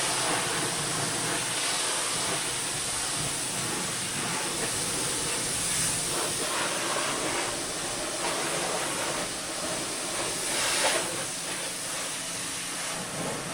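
Pressure washer spraying water onto a muddy ATV: a steady hiss, with a brief louder swell about three quarters of the way through.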